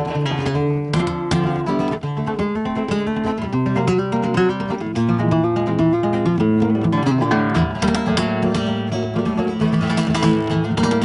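Solo flamenco guitar on a nylon-string Spanish guitar, played with rapid picked notes mixed with strummed chords.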